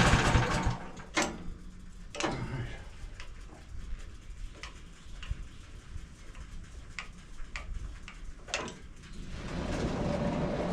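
The loud running of the MechMaxx SM32 sawmill drops away in the first second, leaving a low rumble. A series of scattered sharp knocks follows, typical of oak boards and slabs being handled. Near the end a steady wooden scraping begins.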